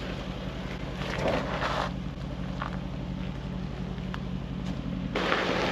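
Mercedes-Benz G-Class engine turning slowly as the truck crawls over rock, with a few crunches of tyres on stones and dry leaves. About five seconds in, the sound changes abruptly to a louder, noisier mix.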